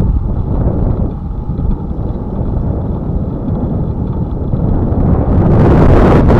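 Wind buffeting the microphone of a moving camera: a steady low rumble that swells louder and hissier about five and a half seconds in.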